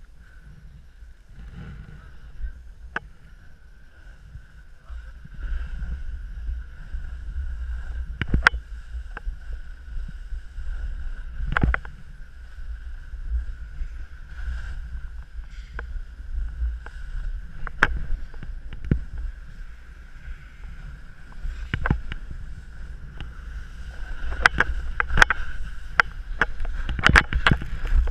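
Sliding downhill over hard, wind-crusted snow, heard through an action camera's microphone: a low, uneven rumble of wind buffeting and snow scraping, with sharp clicks and knocks scattered through, growing louder near the end. A faint steady high tone runs underneath.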